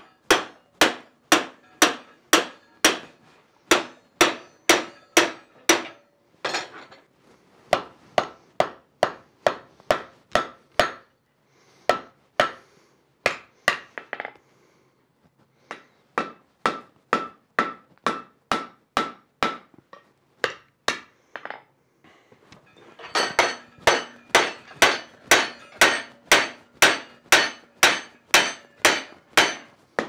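Blacksmith's hammer forging the red-hot end of a steel bar into a ball finial: a steady run of blows, about two or three a second, broken by a few short pauses. The blows are heaviest over the last several seconds.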